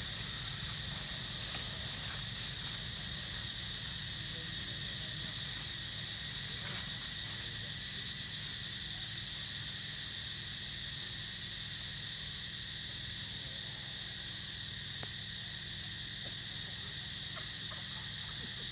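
Steady high-pitched droning of insects in the trees, unchanging throughout, over a low steady rumble. A single sharp click about one and a half seconds in.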